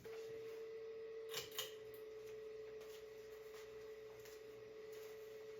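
Antique ceiling fan motor humming with a steady mid-pitched tone, running on its medium speed after a loose medium wire on the speed switch was taped back on. A couple of light clicks come about a second and a half in.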